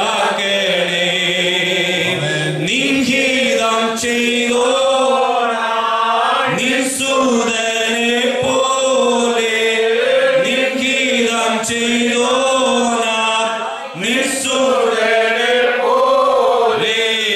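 Slow worship singing in long held, wavering notes that rise and fall in drawn-out phrases, with brief breaks between phrases.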